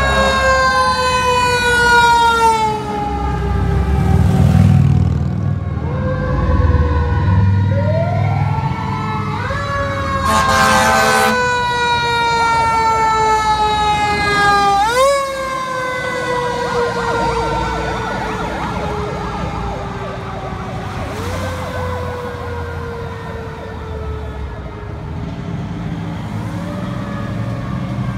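Fire truck sirens passing. The siren repeatedly winds up quickly and then coasts down slowly in pitch, over the low rumble of the trucks' engines. A brief burst of rapid pulsing comes about ten seconds in.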